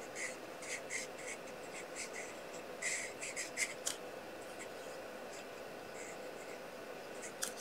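Marker pen colouring in on cardstock: a run of short, faint scratchy strokes that thin out about halfway through.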